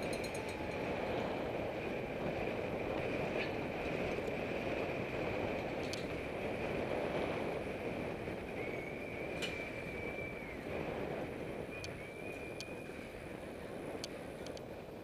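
Wind rushing over a helmet-mounted camera's microphone, mixed with the hum of road-bike tyres on asphalt, while riding at speed. A few sharp clicks come in the second half.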